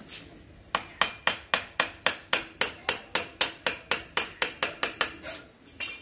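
A rapid, even run of sharp striking blows, about four a second, some twenty in all, followed by one more strike near the end.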